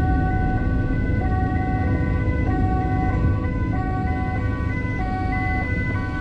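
An emergency vehicle's two-tone siren heard from inside the cabin, switching between a low and a high tone about every 0.6 s, over engine and road noise.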